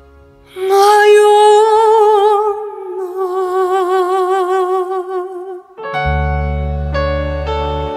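Korean trot ballad: a singer holds the last word on one long note with strong vibrato, over soft accompaniment. About six seconds in the voice ends and deep bass and keyboard chords come in.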